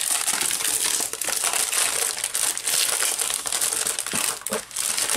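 Clear plastic packaging sleeve crinkling and rustling continuously as a sheet of patterned scrapbook paper inside it is handled and pulled free.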